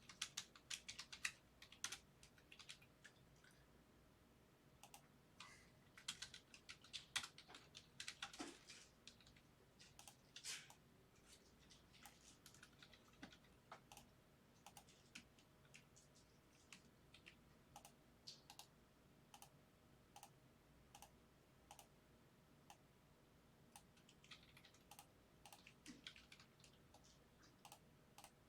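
Faint typing on a computer keyboard, with mouse-like clicks. The keystrokes come in quick flurries, with sparser single clicks between them.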